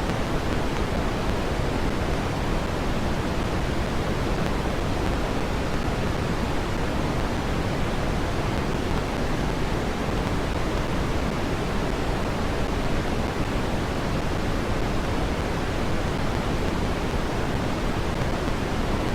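Synthetic red (Brownian) noise at amplitude 0.6: a steady, even rush weighted toward the low end, unchanging throughout, used to mask tinnitus.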